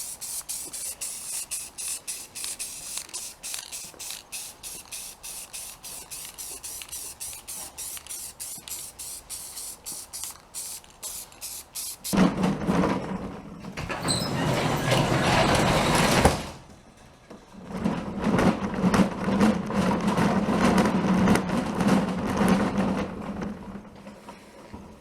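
Aerosol spray-paint can being shaken, its mixing ball rattling in quick, even strokes for about half the time. Then two louder stretches of noise with a steady low hum, the first about halfway through and the second a little later.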